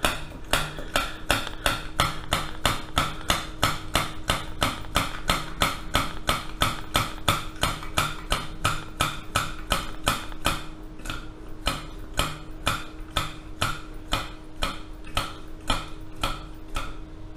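Steady, even clicking, about two and a half clicks a second, from hands working at the burner and valve of a brass gasoline blowtorch; the clicks grow a little weaker and less regular in the second half.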